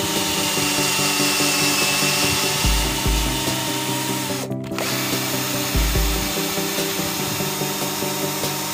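Power drill driving a steel thread tap into a wooden block, cutting a thread into the wood as it turns. It stops briefly about four and a half seconds in, then runs on.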